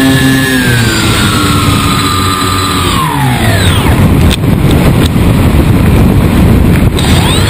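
Onboard sound of a foam-board RC plane's motor and propeller: the whine steps down in pitch as the throttle comes back and falls away about three seconds in, leaving a rough rushing noise of air over the airframe and camera. Near the end the whine comes back, rising as the throttle opens again.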